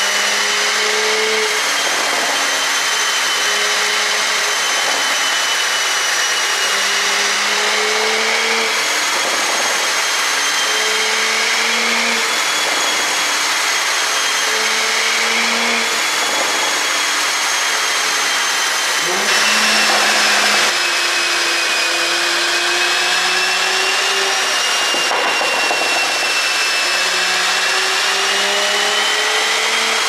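Porsche Cayenne 3.0-litre turbocharged V6 running in gear on a chassis dynamometer, its wheels driving the rollers. A steady high whine runs throughout while the lower engine note steps up and down every second or two, with a brief louder surge about nineteen seconds in.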